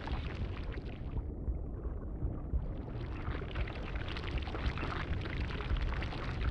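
Ambient sound-design bed: a steady low rumble with a hissing upper layer that thins out about a second in and swells back a little before three seconds in.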